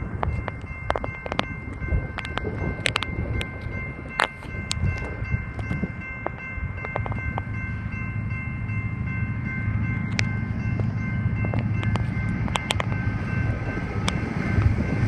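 An empty BNSF coal train, led by an EMD SD70ACe diesel locomotive, approaches: a low diesel engine rumble builds and grows louder through the second half. Over it run steady high ringing tones that stop about twelve seconds in, and scattered sharp clicks.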